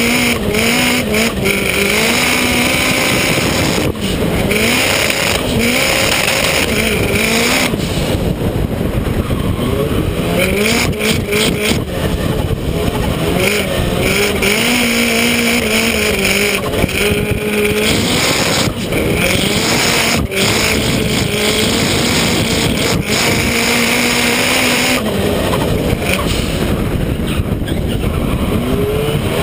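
Toyota Starlet drift car's engine revving hard, its pitch climbing and dropping again and again through the corners, with tyres squealing in spells and wind on the microphone.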